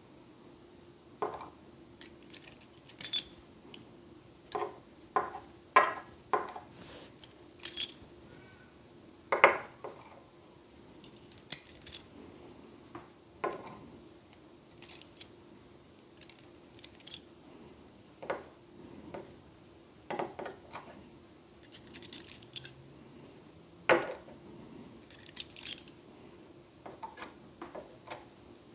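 Small brass discs and washers of a Rosengrens 32A81S disc detainer lock clicking and clinking as they are picked up with metal tweezers and stacked into the lock core: irregular light metallic taps, a few sharper ones, over a faint steady hum.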